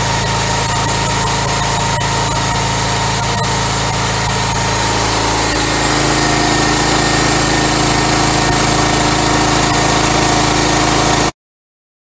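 Engine-driven pressure washer running steadily while its high-pressure jet sprays from a pole lance, a steady engine hum under a spray hiss. It gets a little louder about halfway through and cuts off abruptly near the end.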